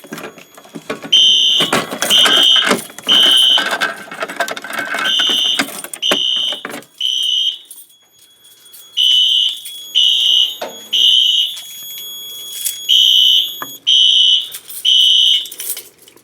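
Fire alarm horns sounding in the temporal-three evacuation pattern: three half-second blasts, then a pause of about a second and a half, repeating. A loud clattering noise runs under the blasts for the first half, then stops.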